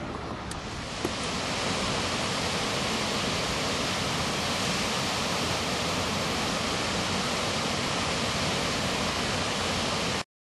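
A small waterfall cascading between rocks: a steady, dense rush of falling water that comes in about a second in and cuts off suddenly near the end.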